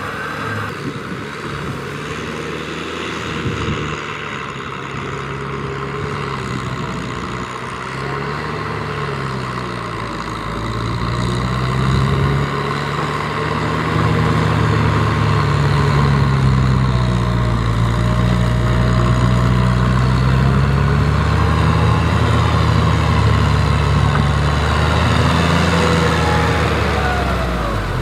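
Kubota M6040SU tractor's diesel engine running under load, its pitch rising and falling as it works through deep mud with a rotary tiller churning the soil. It gets louder about twelve seconds in.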